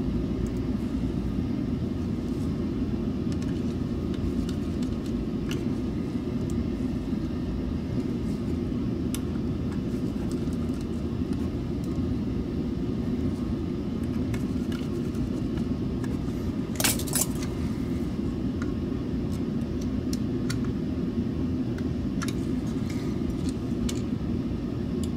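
Small clicks and taps of a screwdriver and tweezers on the plastic parts of a computer mouse being reassembled, with a short cluster of louder clicks about 17 seconds in, over a steady low hum.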